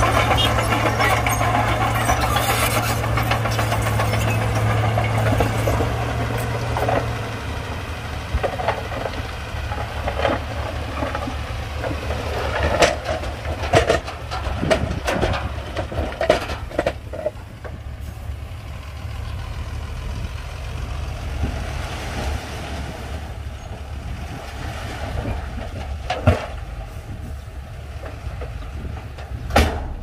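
Diesel engine of heavy earthmoving equipment running, with a strong steady drone that drops off about seven seconds in, then a quieter running sound. Scattered metallic clanks and knocks come through the middle.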